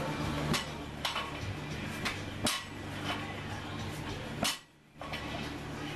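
Iron barbell plates clinking and knocking several times, irregularly, as the loaded bar is handled on the floor, over a steady low hum. The sound cuts out briefly about three-quarters of the way through.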